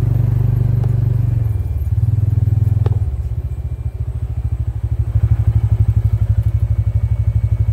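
Tractor engine running close by, a steady low sound that turns into an even rapid pulsing about three seconds in, with a single faint click just before the change.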